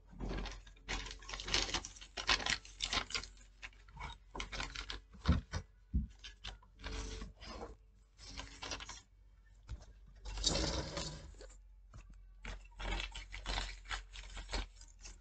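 Paper rustling and crackling in irregular bursts with short pauses.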